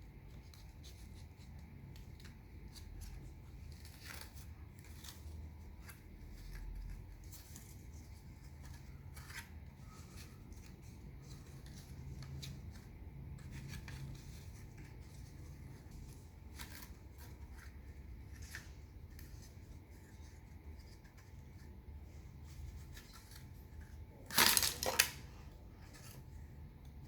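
Scattered light clicks of wooden popsicle sticks being handled and woven together into a stick bomb, over a faint low hum. A short, much louder burst of clattering comes near the end.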